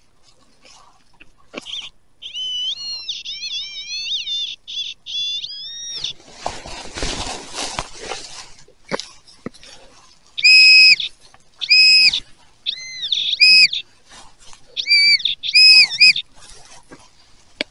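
Metal detector giving target tones: a warbling, wavering tone for several seconds, then a burst of rustling and scraping on the frozen ground, then a series of short, clear, steady beeps about a second apart.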